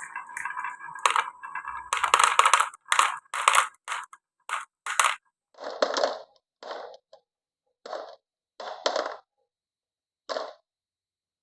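Marbles on a wooden marble run: a rolling sound fades out in the first second, then a quick run of sharp wooden clacks. These thin out to single knocks about a second apart and stop near the end.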